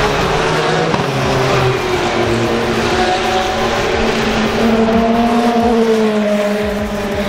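Race car engines running at speed on a street circuit, with one engine note climbing steadily as a car accelerates.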